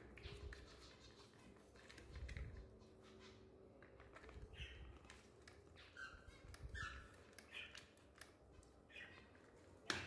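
Faint handling sounds of a budgie held in a gloved hand while its spread wing is sprayed with a trigger pump spray against mites, with a few short high sounds in the middle and a sharp click near the end.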